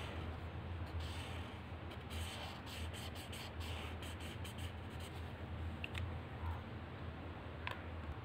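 Felt-tip marker rubbing on paper in short repeated strokes, colouring in a stripe. It is faint, over a low steady hum.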